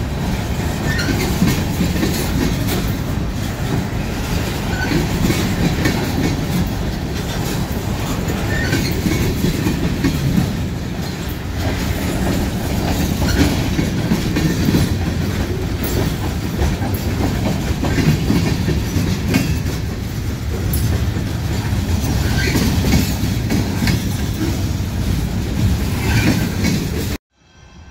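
Train cars rolling past with a steady rumble and clickety-clack of wheels over rail joints, with faint short wheel squeals now and then. It cuts off suddenly near the end.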